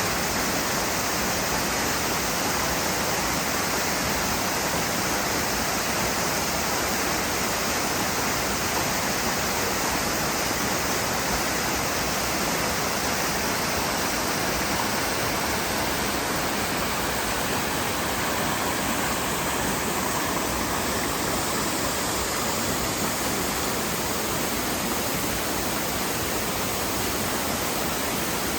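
Waterfall: an even, steady noise of falling water with no changes.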